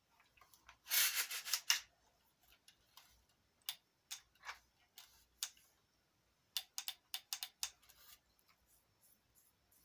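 Handling noise from an AR-15 rifle: a brief rubbing scrape about a second in, then scattered sharp clicks and light knocks, with a quick run of clicks about two-thirds of the way through.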